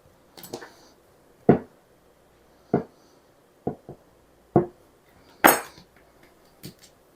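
Kitchen utensils and dishes knocking and clinking: a string of separate sharp knocks, about one a second, with a faint ring after some. The loudest ones fall about one and a half seconds in and about halfway through.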